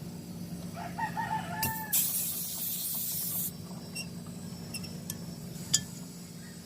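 A rooster crows about a second in, over the steady hum of the refrigerator running. Right after, a sudden burst of hiss lasts about a second and a half and cuts off abruptly: gas escaping as the refrigerant gauge hose is taken off the access valve. A few light clicks follow.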